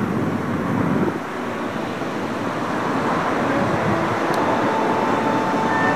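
Steady wind rumbling on the microphone over the wash of surf on a sandy beach.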